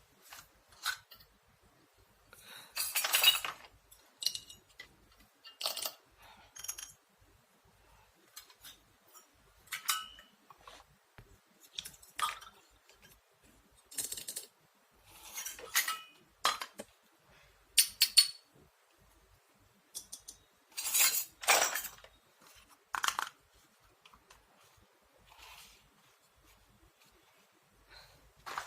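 Small toy kitchenware pieces clinking and clicking as they are handled and set down, one or two light knocks at a time with short pauses between, some ringing briefly.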